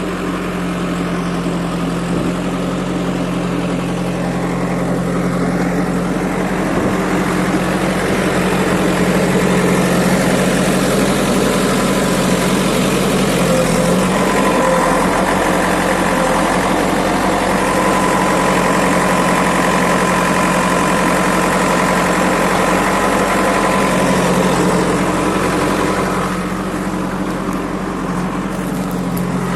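The engine of a construction machine running steadily at a constant speed, a little louder through the middle stretch.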